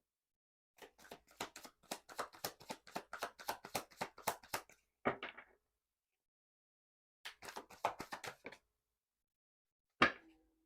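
A tarot deck being shuffled by hand: a fast run of cards slapping together, about six a second for some four seconds, then a single thump, a second shorter run of slaps, and one louder knock near the end.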